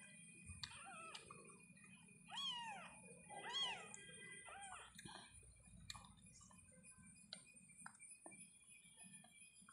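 Newborn kittens, eyes not yet open, mewing: thin high cries that fall in pitch, the two loudest about two and a half and three and a half seconds in, with a few fainter ones around them.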